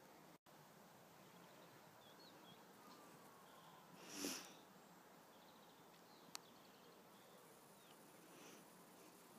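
Near silence, broken about four seconds in by one short breathy sniff close to the microphone, and a single sharp click a couple of seconds later. A few faint high chirps come early on.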